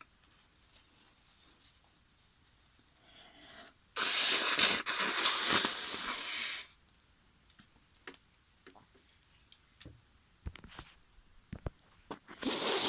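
A woman blowing her nose hard into a tissue: one long blow of about two and a half seconds starting about four seconds in, then a second, short blow near the end. Her congested, snotty nose after a sneezing fit is what she is clearing.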